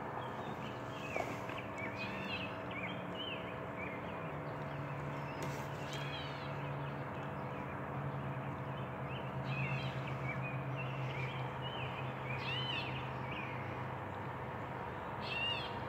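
Songbirds chirping, short calls repeated here and there, over a steady low hum that grows a little stronger about four seconds in.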